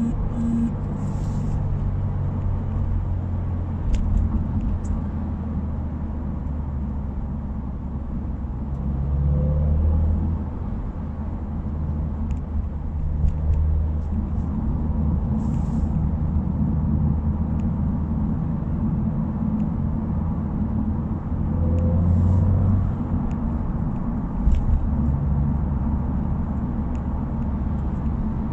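Subaru WRX's turbocharged flat-four engine and exhaust under way, a steady low drone. The engine note swells briefly about a third of the way in and again about three-quarters through.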